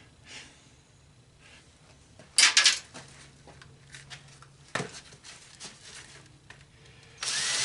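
Handling noises while working on a wooden piece with corroded screws: a short clatter of sharp metallic clicks about two and a half seconds in and a single knock near five seconds. Near the end a cordless drill spins up and runs steadily, backing out a screw.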